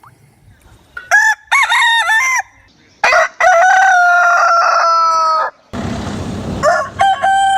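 Rooster calls: a few short clucks, then one long crow, and more calls near the end. A brief burst of rushing noise comes about six seconds in.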